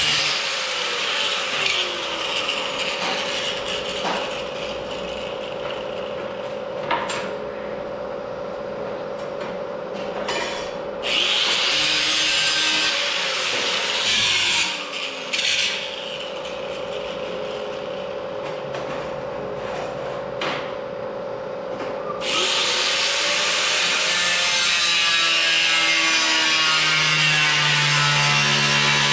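Angle grinder with a cutoff wheel cutting sheet steel, a loud hissing screech while the wheel is in the metal over the steady whine of the motor. Through the middle it mostly spins with only a few short cuts, then cuts continuously from about two-thirds of the way through.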